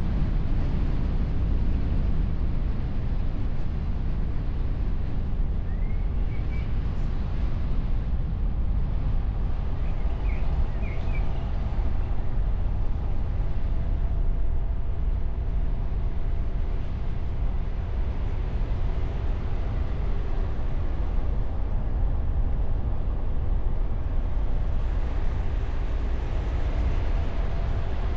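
A car driving along at steady speed: low rumble of engine, tyres and wind, picked up by a camera mounted on the bonnet behind a wind muffler.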